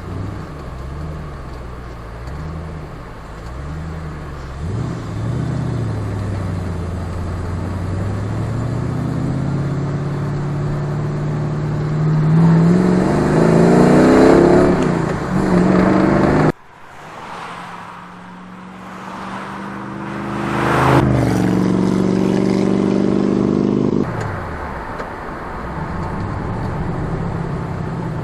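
Lamborghini Countach replica driving by under acceleration, its engine revs climbing to a loud peak as it passes. The sound cuts off abruptly about two-thirds in, then another pass builds up and cuts off again near the end.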